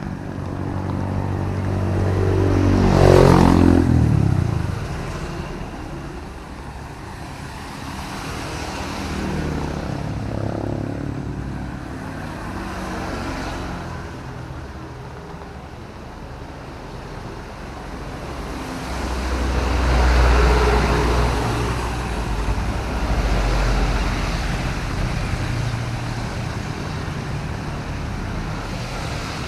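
Road traffic passing in drizzling rain: a vehicle goes by about three seconds in, its engine note falling in pitch as it passes, and a heavier, deeper-sounding vehicle passes around twenty seconds in, over a steady background of traffic noise.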